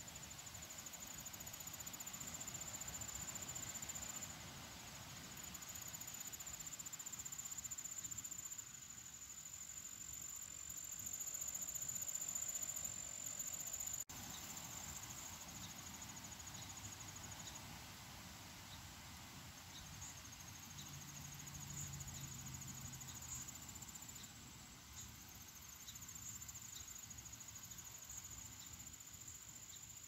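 Insects trilling in a steady high-pitched chorus of several thin tones that swell and fade, loudest near the middle.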